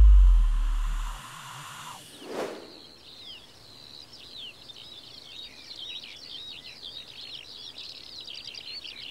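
A deep electronic bass hit fades out over about a second, and a short whoosh follows about two and a half seconds in. Then small birds chirp busily and steadily, as on an alpine mountainside, over a faint hiss.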